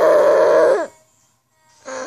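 A girl's loud, drawn-out wordless wail lasting about a second, then a shorter, quieter one near the end whose pitch drops away.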